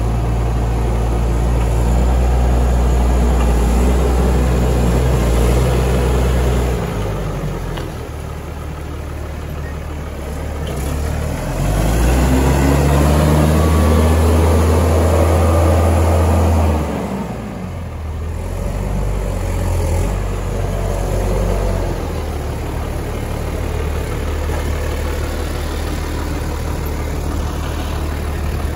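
2007 New Holland T7050 tractor's six-cylinder diesel engine running as the tractor drives. It is loud in two stretches, and the engine speed rises about a third of the way in. It then settles to a steadier idle for the last ten seconds or so.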